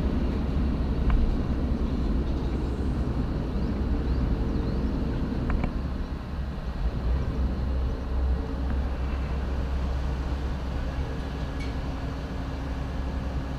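Low, steady drone of a car ferry's engines running, with a few faint clicks.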